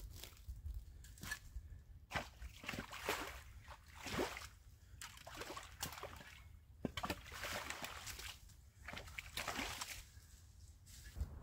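Shallow creek water sloshing and splashing in irregular bursts, with short lulls in between.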